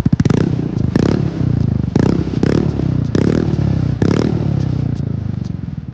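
Hero Xoom scooter's single-cylinder engine blipped about six times through an aftermarket full-system exhaust, each rev rising quickly and falling back toward idle, with a loud, open exhaust note.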